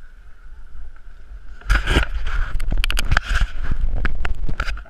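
Handling noise on a camera: fingers rubbing, scraping and knocking on the housing right at the microphone. A dense run of loud scrapes and clicks starts about two seconds in and stops just before the end.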